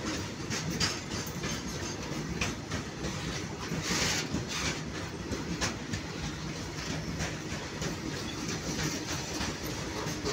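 Loaded freight train of tarpaulin-covered BOXN open wagons passing at speed: a steady rumble with the wheels clattering over the rail joints in irregular sharp clicks, and one louder clatter about four seconds in.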